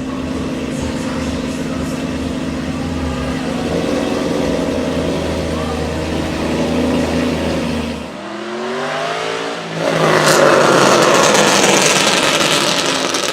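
Aston Martin Vantage AMR Pro's engine running at low, steady revs, then revving up in a rising sweep about eight seconds in. In the last few seconds it goes to hard, loud acceleration.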